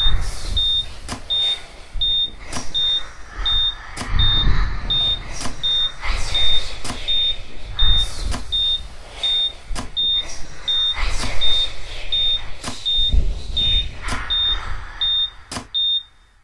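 A short high electronic beep repeating evenly, about four times every three seconds, over a noisy, pulsing background with sharp clicks at regular intervals; the background drops away near the end while the beeps go on.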